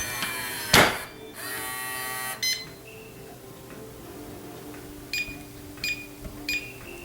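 Electronic keypad deadbolt being operated: a sharp click, then its motor whirring for about a second as it drives the bolt, followed near the end by four short keypad beeps.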